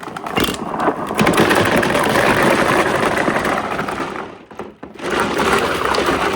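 Many marbles rolling and clattering down a marble-run track in a dense, continuous rattle that drops away briefly about four and a half seconds in, then starts up again.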